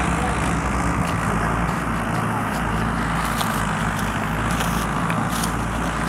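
Two Mahindra Arjun 555 tractors' diesel engines running steadily under heavy load, hitched in tandem to drag one mouldboard plough deep through the soil.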